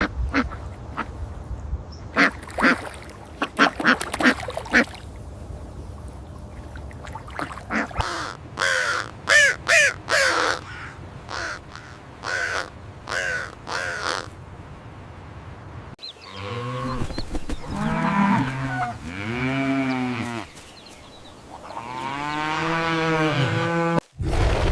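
Ducks quacking in many short calls, sometimes in quick runs. About two-thirds of the way through the sound changes abruptly to a cow mooing in several long calls that rise and fall in pitch.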